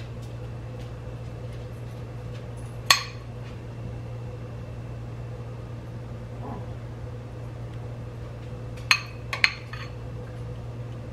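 Metal ladle clinking against a glass bowl while spooning out juice: one sharp clink about three seconds in and two quick ones near the end, over a steady low hum.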